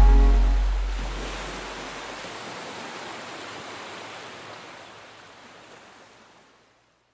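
The soundtrack's last bass note dies away under a steady surf-like rushing noise, which slowly fades out to silence near the end.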